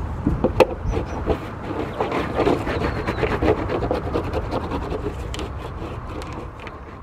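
Surf wax being rubbed onto a surfboard deck in quick, irregular strokes: a steady scratchy rubbing that fades away near the end.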